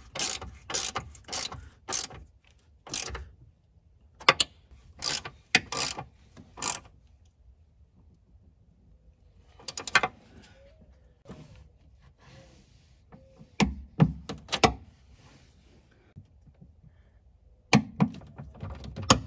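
Hand ratchet clicking in short runs with pauses between them as the top mount nuts of a rear shock assembly are tightened. Near the end a torque wrench is on the nuts, bringing them to 41 ft-lbs.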